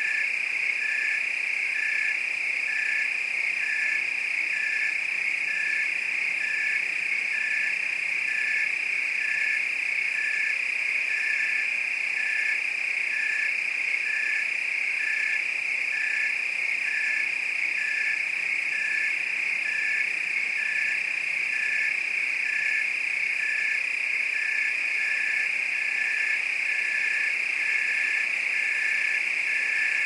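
Chorus of crickets: a dense, steady high trill, with a separate evenly pulsed chirp repeating about twice a second just below it.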